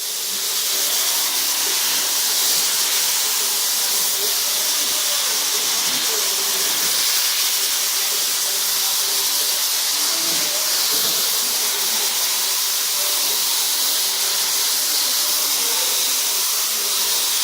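Paint spray gun hissing steadily in one continuous pass, laying down a first coat of paint.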